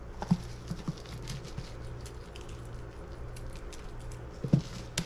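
Grated Parmesan cheese shaken from a plastic shaker container onto a lasagna in a foil pan: a light patter with a few soft taps.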